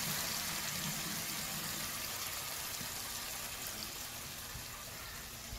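Masala paste of onion, ginger, garlic, tomato and yogurt frying in hot oil in a deep pan: a steady sizzling hiss that slowly fades a little.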